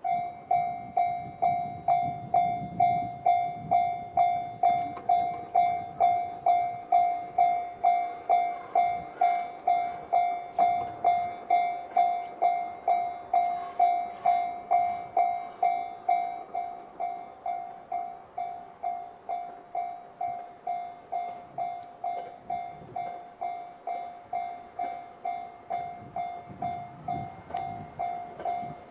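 Japanese railway level-crossing alarm sounding the JR standard electronic bell tone: it starts abruptly and rings steadily at about two strikes a second, warning that a train is approaching.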